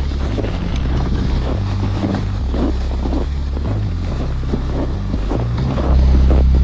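Wind buffeting the microphone: a loud, uneven low rumble that gets louder about six seconds in.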